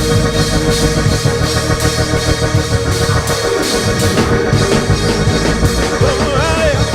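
Live church band music: Hammond-style organ chords held over a drum kit keeping a steady beat.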